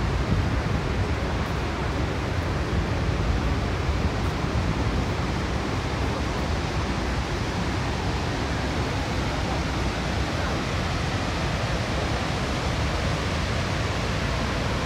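Steady rushing of water from Niagara Falls and the churning rapids below, an even noise with no breaks.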